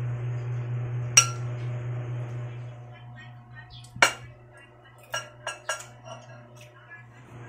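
Spoon and fork clinking against a ceramic plate while eating: a sharp clink about a second in, a louder one about four seconds in, then a few lighter clinks, over a steady low hum.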